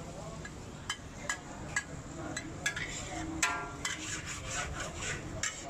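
Metal wok spatula knocking and scraping against a large wok while noodles are stir-fried, with irregular sharp clanks about twice a second.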